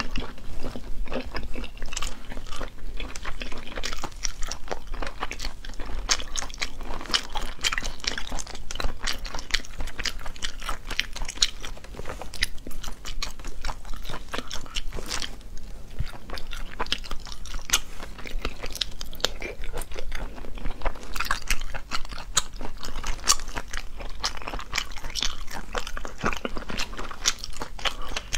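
Close-miked eating sounds: cooked sea snails pulled apart by hand and chewed, a dense, irregular run of wet crunches, clicks and crackles.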